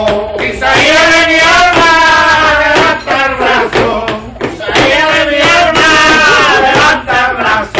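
Men's voices singing loudly in long, held, gently wavering notes, in two long phrases with a short break about halfway.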